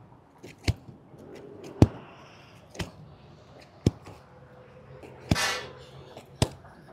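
A heavy canvas banner being unrolled by hand on asphalt, the roll knocking and clicking against the ground about once a second, with a short scraping rustle of canvas about five seconds in.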